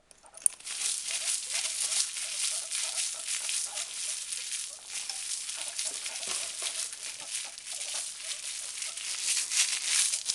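Plastic bag rustling and crinkling continuously, the sound guinea pigs learn to link with food, while guinea pigs wheek and squeak in excitement.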